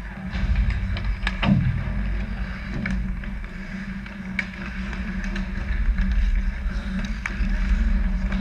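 Ice hockey play with a steady low rumble and a handful of sharp clacks of sticks and puck on the ice, the loudest about one and a half seconds in.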